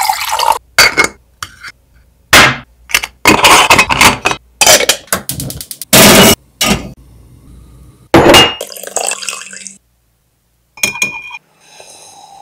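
Kitchen clatter: a quick series of loud, sharp metallic clinks and knocks from an aluminium stovetop moka pot and a wire rack being handled on a gas hob while coffee is made. Near the end comes a short ringing clink.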